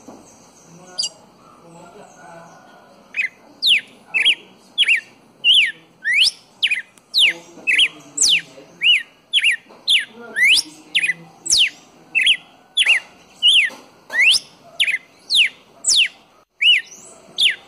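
Red-cowled cardinal (galo-de-campina) singing: one sharp note, then from about three seconds in a long, fast run of loud, clear whistled notes, about two a second, each a quick sweep up or down in pitch.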